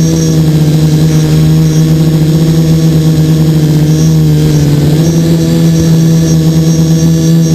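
HT-FPV quadcopter's electric motors and propellers in flight, a loud steady buzzing hum heard close up from the camera mounted on the craft. The pitch dips and rises slightly about five seconds in as the throttle changes.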